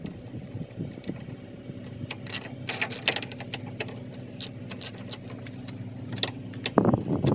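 Scattered metal clicks and clinks of a socket wrench working a 10 mm radiator-support screw loose, over a steady low hum.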